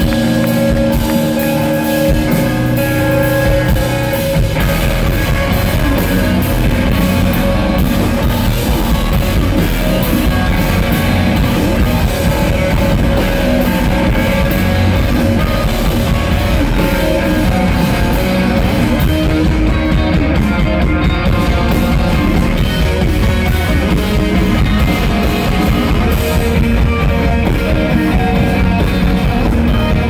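Rock band playing live: electric guitars, bass guitar and a drum kit, loud and steady.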